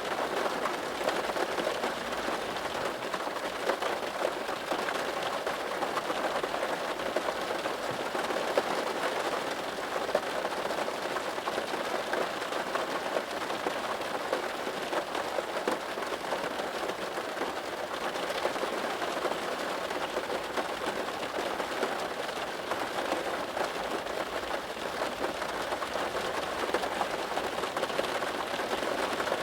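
Steady rain falling, a dense patter of many small drops at an even strength.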